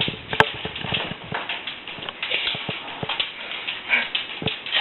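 Dog playing with a ball: irregular taps and knocks of paws, claws and the ball, with a sharp knock about half a second in.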